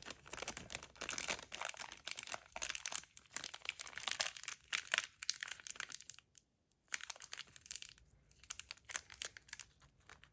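Plastic bags crinkling as they are handled and pressed flat to push the air out, with a brief pause a little past halfway.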